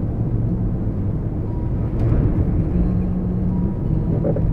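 Steady in-car road and engine noise from a car driving on a rain-soaked road, picked up by a dashcam. About two seconds in there is a sharp click and a brief swell as oncoming traffic passes.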